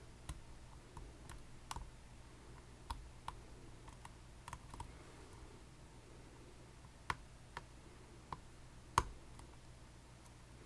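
Small metal tools working a Dierre New Power lock cylinder: scattered, irregular light clicks and taps, with a few sharper clicks in the second half and the loudest about nine seconds in.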